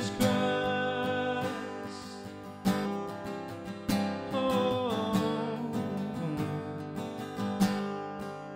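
Acoustic guitar strummed in a slow worship song, with a man singing over it in two phrases.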